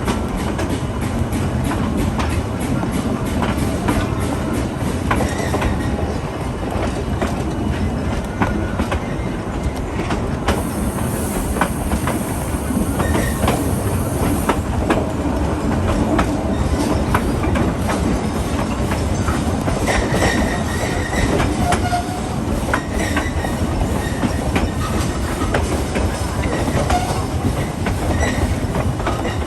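Railroad coach rolling behind Tweetsie No. 12 on the narrow-gauge line: a steady rumble of wheels on track with frequent clicks over the rail joints and brief high wheel squeals now and then, especially in the second half.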